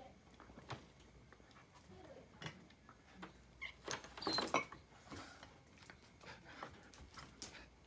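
A dog and a kitten playing on a tabletop: scattered soft taps and scuffles of paws and objects, with a busier flurry and a short high-pitched squeak about four seconds in.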